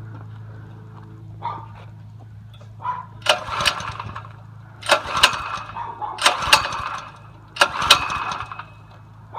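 Predator 212 cc single-cylinder mini bike engine being pull-started: four pulls of the recoil starter about a second and a half apart, each turning the engine over without it catching, over a steady low hum.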